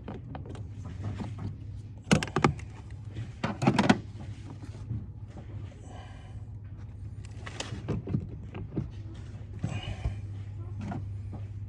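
Clinks, clicks and knocks of hand tools against metal brake parts, in short irregular clusters over a steady low hum. The loudest clatter comes about two seconds in and again near four seconds in.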